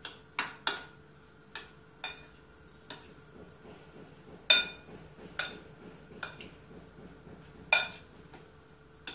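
Utensils knocking and clinking against the side of a wide mixing bowl as a chopped herring salad is tossed, in irregular strikes about one or two a second, the loudest about four and a half and nearly eight seconds in.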